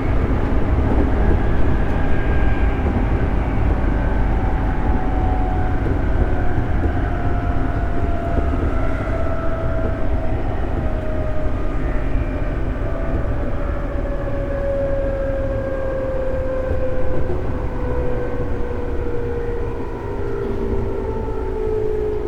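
Running sound of a JR Central 211 series electric multiple unit heard on board: a steady rumble of wheels on rail, with a motor and gear whine that falls steadily in pitch as the train slows.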